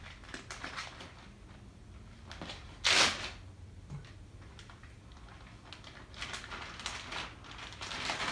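A clear plastic zip-top bag being handled: crinkling and rustling, with one louder crinkle about three seconds in and more crinkling near the end as the raw flank steak goes into it.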